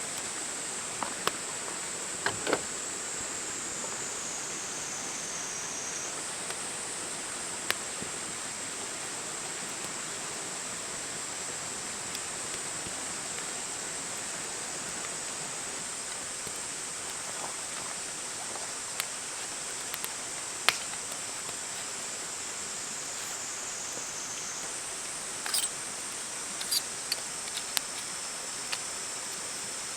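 Campfire crackling, with scattered sharp pops over a steady hiss and a high steady whine that shifts pitch twice.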